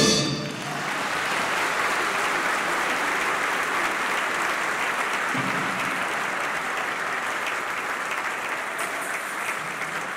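The orchestra's last note breaks off right at the start, then an audience applauds steadily.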